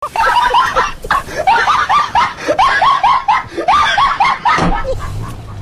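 Loud, high-pitched laughter: a fast run of short peals, about four a second, fading near the end over a low rumble.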